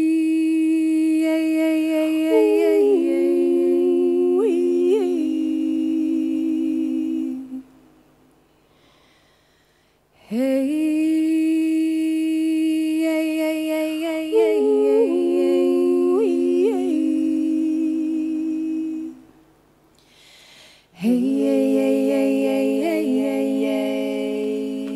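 Women's voices singing a wordless a cappella harmony: long held notes in parallel, each phrase about eight seconds long with small quick ornaments in pitch. The singing stops twice, about eight and twenty seconds in, then starts again.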